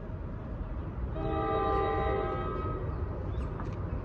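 Horn of an approaching NJ Transit commuter train sounding one blast of several tones together, starting about a second in and lasting about a second and a half, over a low steady rumble.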